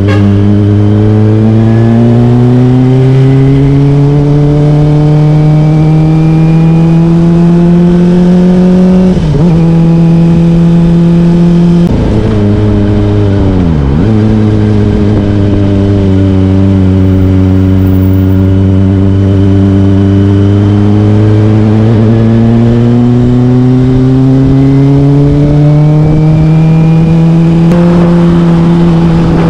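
Kawasaki Ninja ZX-25R's 250 cc inline-four running through a Yoshimura R11 aftermarket exhaust under way, the revs climbing slowly with a brief dip about nine seconds in. The revs fall away sharply about twelve seconds in, pick up again two seconds later and climb slowly once more.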